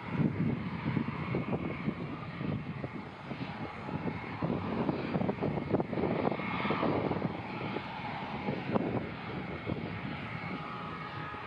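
Airbus A320-232's IAE V2500 jet engines running at taxi idle: a steady whine over an uneven low rumble.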